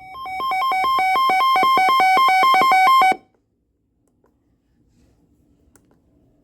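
Electronic alert alarm from a weather radio receiver: rapid beeps alternating between two pitches, shrill with overtones, for about three seconds before cutting off suddenly. It signals an incoming emergency alert, here a severe thunderstorm warning.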